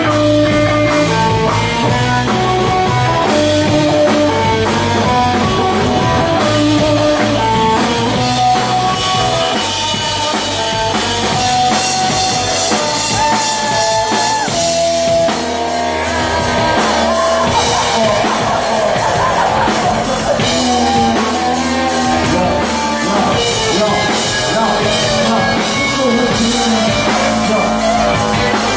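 A live band playing a dub-style rock number at full volume: a drum kit and an electric guitar carrying a stepping melodic line.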